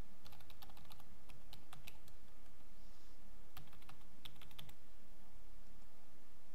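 Computer keyboard typing: a quick run of keystrokes lasting about two seconds, a pause, then a shorter run of about six keystrokes starting about three and a half seconds in.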